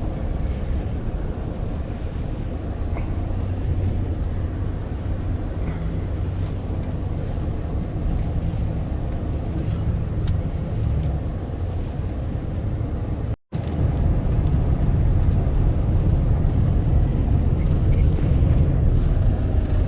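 A vehicle driving through deep snowdrifts, with a steady low engine and drivetrain rumble under load. The sound cuts out for a moment about two-thirds of the way through, then comes back louder.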